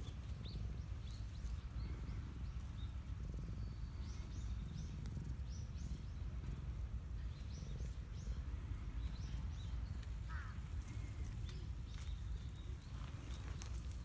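Small birds chirping in short, scattered high calls over a steady low outdoor rumble.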